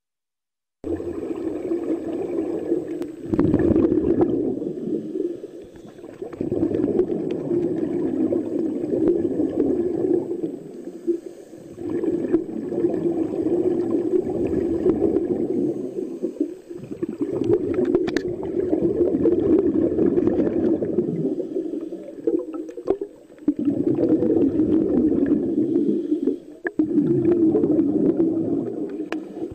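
Open-circuit scuba regulator exhaust bubbles heard underwater: a burbling rumble rising and falling in long swells about every five seconds, one for each exhaled breath of air, dropping away between breaths.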